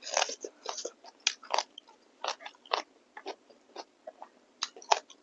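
Close-miked chewing and biting of a person eating beef innards and meat curry: irregular wet mouth clicks and smacks, about two or three a second.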